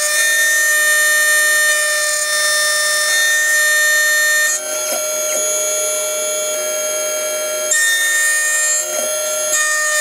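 Xhorse Dolphin XP005 key cutting machine milling a HON66 Honda key blade with its 2.5 mm cutter: a loud, high-pitched whine made of several steady tones. The whine changes pitch about halfway through and again near the end.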